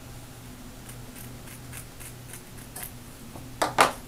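Small scissors trimming appliqué fabric close to the tack-down stitching in an embroidery hoop: a run of soft, evenly spaced snips, with two louder clicks near the end.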